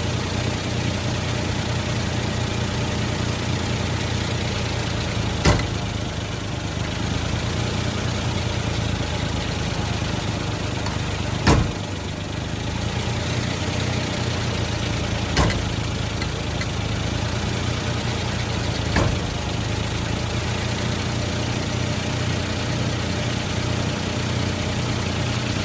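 Suzuki Jimny idling steadily, with a sharp clunk four times a few seconds apart, the loudest about halfway through. The clunk ("gakkun") comes when the steering wheel is turned, and its cause is unknown to the owner.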